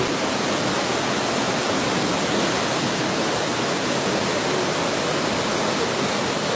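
Swollen river in flood rushing over and past a weir, a steady, unbroken rush of churning white water.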